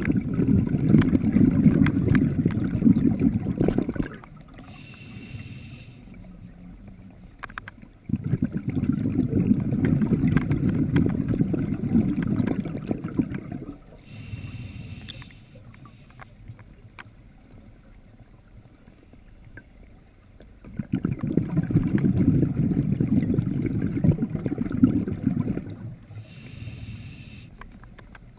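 Scuba diver breathing through an open-circuit regulator. Three long exhalations, each a rush of bubbles lasting four to five seconds, alternate with short, high hissing inhalations through the regulator between them.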